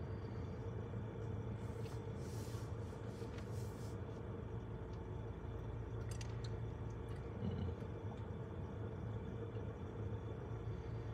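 Steady low engine hum idling, heard from inside a truck cab. A brief hiss comes about two seconds in and a few faint clicks about six seconds in.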